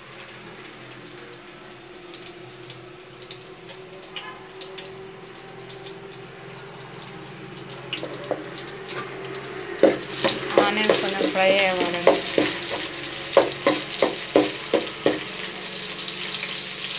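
Chopped onions sizzling in hot oil in an aluminium kadai, with scattered pops. About ten seconds in the sizzle grows much louder as more onion goes into the oil and is stirred with a spatula.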